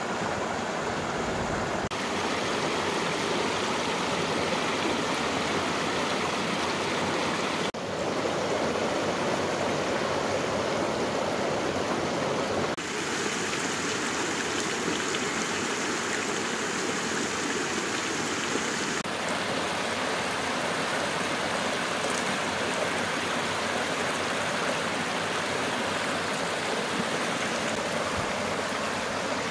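Mountain stream running over rocks: a steady rush and splash of water whose tone shifts abruptly a few times.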